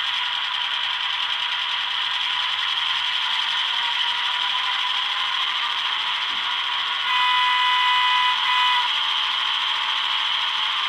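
Factory-fitted DCC sound decoder of an HO-scale Powerline Victorian Railways T Class model diesel locomotive playing its diesel engine running sound through the model's small onboard speaker, thin with almost no bass. About seven seconds in, a horn of several steady tones sounds once for a little under two seconds.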